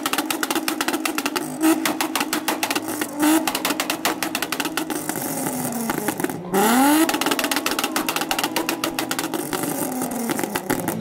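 A car engine being revved hard at a car meet: rapid, loud exhaust pulsing, with the engine's pitch climbing sharply in a quick rev about six and a half seconds in and louder bursts at other points.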